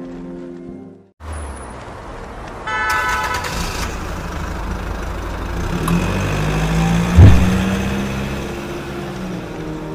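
A motor vehicle's engine running, with a horn sounding for about a second roughly three seconds in and a brief, very loud low blast a little after the middle.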